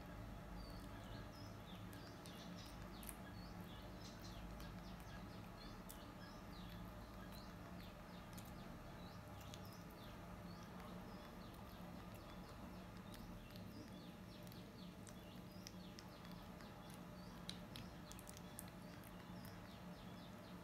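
Faint, soft clicks and smacks of a baby macaque chewing banana, scattered over a low steady hum, with small high chirps here and there.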